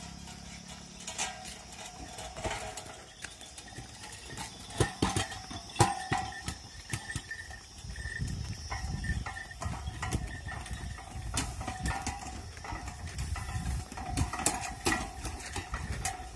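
Bullock cart drawn by a pair of oxen on the move: irregular clip-clop of hooves on a dirt road with knocks and rattles from the loaded wooden spoke-wheeled cart, and a low rumble from about halfway.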